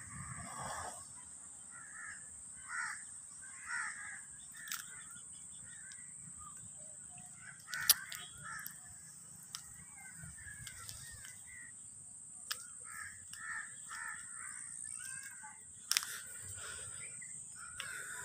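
Faint bird calls, short and scattered, repeating every second or so, with a couple of sharp clicks.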